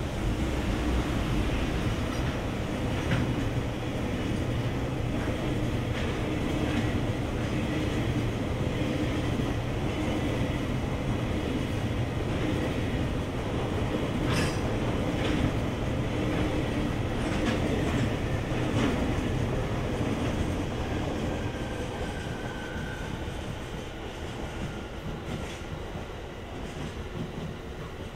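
Freight train wagons rolling past on the main line: a steady rumble with irregular clicks of wheels over rail joints, fading over the last several seconds as the train draws away.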